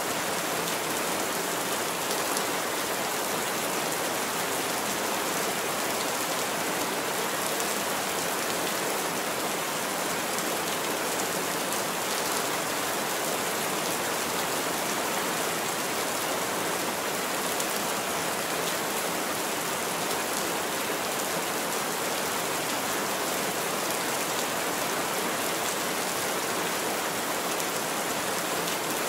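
Heavy rain falling steadily on a roof, an even, unbroken hiss.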